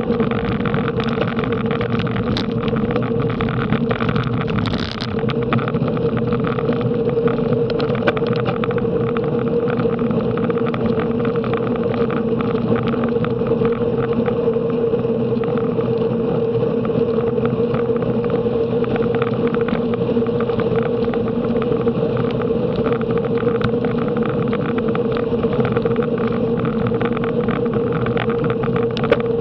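Steady rush of wind and road noise from a bicycle riding at racing speed, with a steady hum underneath.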